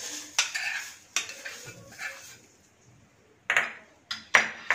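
A metal spoon scraping and tapping a small pan as hot tempering is emptied into a bowl of coconut-milk solkadhi, then a few sharp metal clinks near the end.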